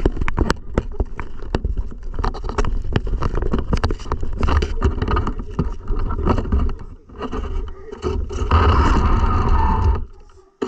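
Radio-controlled car driving, with many sharp clicks and knocks over a steady low rumble. The car gets louder for a stretch near the end, then the sound drops away suddenly.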